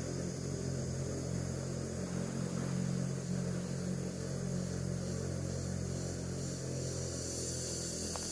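A small boat's engine running steadily at a constant speed, a low even drone with a hiss over it.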